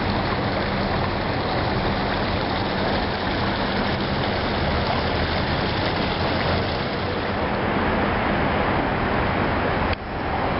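A steady engine running, a constant low hum under a broad rushing noise, with a sudden brief drop near the end.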